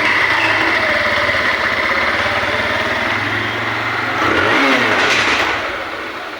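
TVS Apache BS6 2V's single-cylinder engine idling, revved briefly once about four seconds in, then the sound falls away near the end. It runs with a freshly fitted camshaft, replacing one whose stepped oil holes caused a piston-knock-like noise; the noise is now gone.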